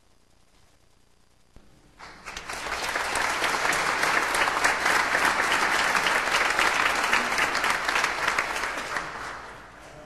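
Audience applauding: the clapping starts about two seconds in, holds steady, and dies away near the end.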